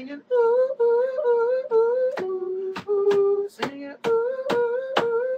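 A person humming a wordless tune in held notes, dipping lower near the middle, broken by sharp mouth clicks in beatbox fashion.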